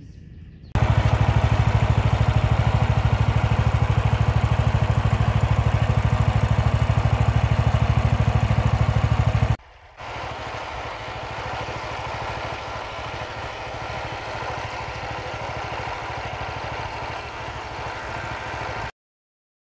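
Small engine driving a homemade longtail-style propeller shaft, running loud with a rapid, even putter. After a break about halfway through it runs on more quietly, then cuts off near the end.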